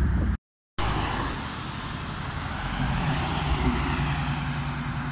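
Dodge Charger driving away on the road, its engine giving a steady low note over tyre and road noise. The sound drops out for a moment about half a second in, before the Charger is heard.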